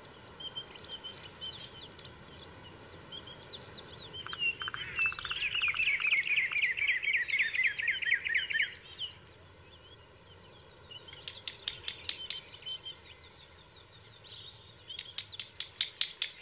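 Birds chirping, with a fast trill lasting a few seconds in the middle that falls slightly in pitch, and quick runs of chirps near the end.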